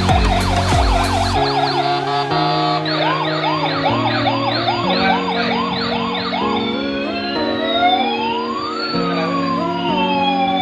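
Electronic police-style siren: a quick whooping warble of two to three rises a second, then from about seven seconds two long slow glides, one falling and one rising. Background music with held chords plays underneath.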